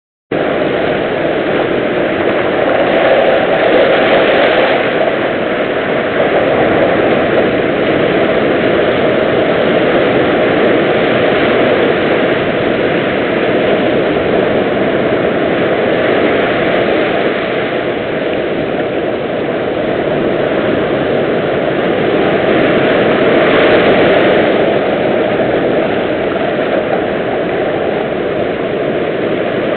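Surf tumbling over beach boulders and washing up the sand: a continuous rush of breaking water that swells louder twice, once a few seconds in and again about two-thirds of the way through.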